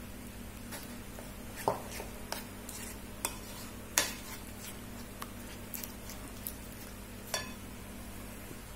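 A metal fork stirring a thick flour-and-cornflour batter in a bowl, with a dozen or so irregular clinks as it knocks against the sides, the loudest about two seconds and four seconds in.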